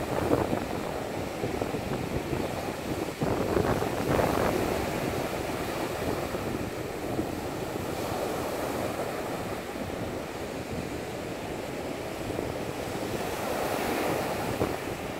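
Baltic Sea surf breaking and washing up a sandy beach, a continuous rush that swells as waves break, loudest about four seconds in. Wind rumbles on the microphone.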